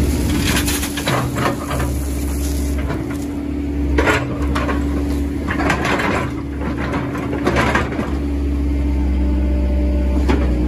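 2006 Cat 312C L excavator's Cat 3064T diesel engine running steadily while the machine digs and dumps dirt. Scattered clatter and thumps of falling dirt and the bucket sound over it, the loudest about four seconds in.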